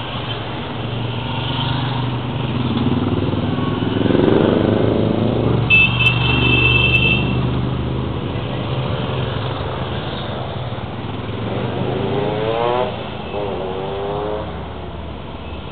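A procession of motorcycles riding past one after another, their engines running steadily. A brief high-pitched tone sounds about six seconds in. Near the end two engines rev up one after the other, rising in pitch.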